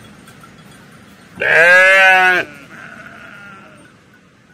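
Livestock bleating: one loud, drawn-out bleat starting about a second and a half in and lasting about a second, followed by a fainter call.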